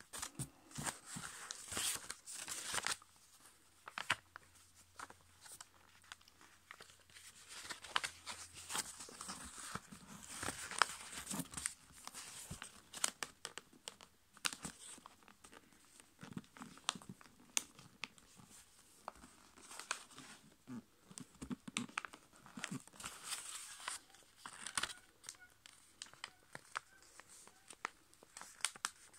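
A sheet of A5 copy paper being folded and creased by hand: irregular rustles and crinkles, with sharp clicks as the folds are pressed flat.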